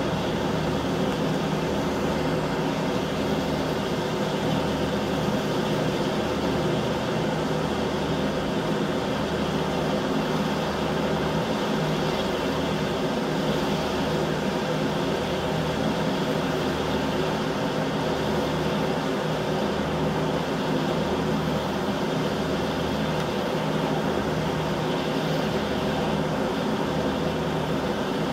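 Steady mechanical hum with a low throb that pulses on and off about every second and a half.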